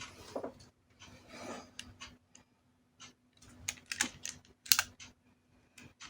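Hands handling a plastic DX Suiseiken Nagare toy sword. First comes soft rubbing, then a run of sharp plastic clicks from about halfway in, one of them loudest just before the end.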